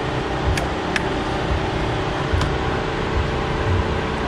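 Electric radiator cooling fan of an overheated, switched-off diesel car running on with a steady rushing sound, with a few light clicks.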